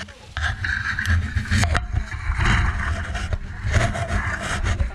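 Scraping and rustling from hooking a shot squirrel out of where it fell, over a heavy, continuous low rumble, with a few sharp clicks.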